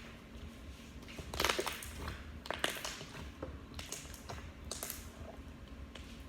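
Glossy slime being worked by hand, making a few irregular soft clicks.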